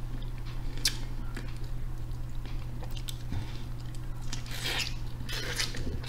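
Close-miked eating of snow crab: chewing and wet mouth sounds with a few short sharp clicks and crackles from picking at the crab meat and shell, over a steady low electrical hum.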